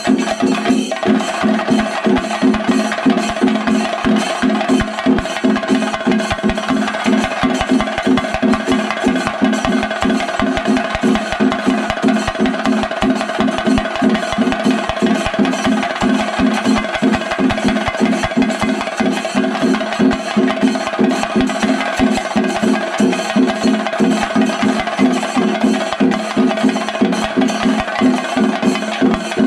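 Kerala temple drumming (chenda melam): a fast, steady run of drum strokes over a sustained tone.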